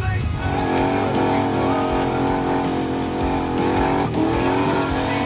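Turbocharged Lincoln Town Car's engine running hard at high revs under acceleration. About four seconds in the sound breaks briefly, then the pitch climbs again.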